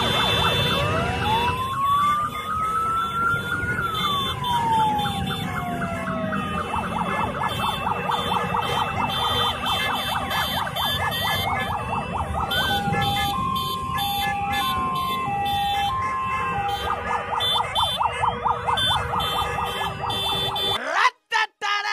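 Several sirens sounding at once: a wail that rises and then falls slowly, fast repeated yelping sweeps, and a two-tone hi-lo pattern alternating between two notes in the middle, over a steady low rumble. It all cuts off suddenly near the end.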